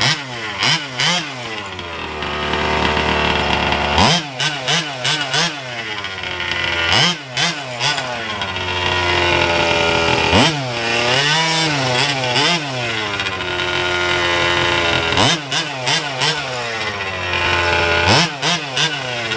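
Small two-stroke gas engine of a 1/5-scale Losi 5ive-T RC truck running just after starting. It is revved sharply about five times, each time falling slowly back, with clusters of short sharp blips in between.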